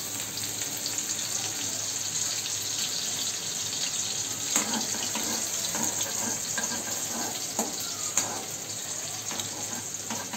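Chopped green onion sizzling in hot oil in a kadhai, a steady crackling hiss. From about four seconds in, a metal spoon stirs and scrapes against the pan, with a few sharper clinks.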